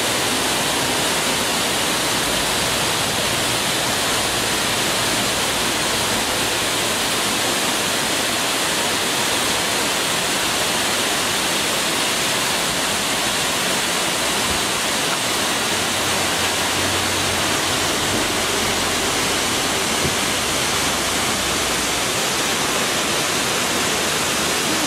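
Waterfall: water pouring over rock ledges in a steady, even rush.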